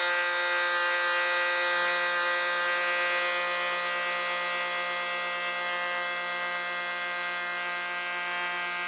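Handheld plunge router running at a constant speed, a steady whine with the hiss of the bit cutting along the wooden edge of the table top.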